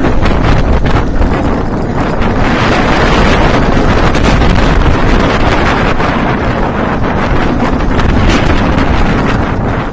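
Loud wind rushing over the microphone as a Bolliger & Mabillard floorless coaster train runs at speed, with the train rumbling and rattling along the steel track.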